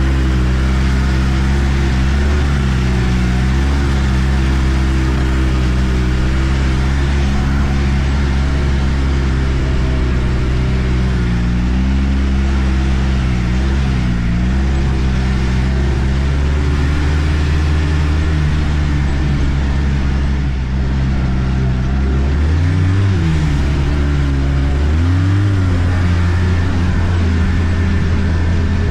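Arctic Cat turbo snowmobile's turbocharged four-stroke engine running steadily under way. Its pitch dips and climbs back a few times as the throttle is eased and reapplied, twice in quick succession near the end.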